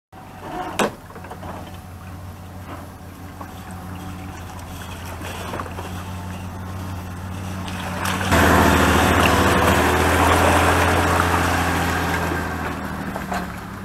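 Pickup truck engine running steadily with a low hum, then revving up about eight seconds in as it pulls the empty boat trailer up the launch ramp, easing off near the end. A sharp knock about a second in.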